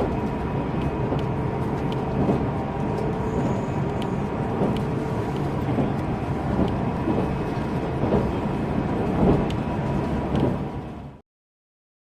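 Running noise inside a JR Central 373 series electric train underway: a steady rumble with a faint steady tone and occasional light clicks. It cuts off suddenly about 11 seconds in.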